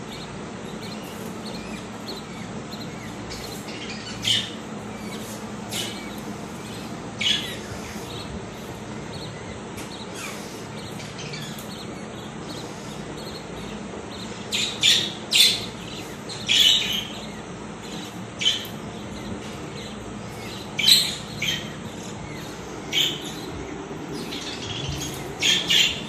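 Budgerigar chicks giving short, high chirps and squawks, scattered at first and coming more often in the second half, over a steady low hum.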